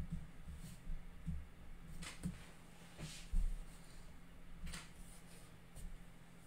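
Faint handling noise at a painting table: soft low knocks, the loudest about three and a half seconds in, and a few light ticks as a watercolour brush works on the paper and the paint palette is shifted.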